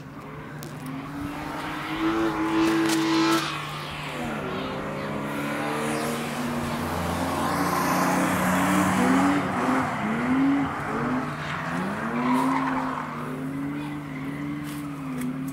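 BMW 328i engine revving hard, climbing and then dropping off, followed by a run of short up-and-down revs as the car drifts, with tyres squealing and scrubbing on the tarmac.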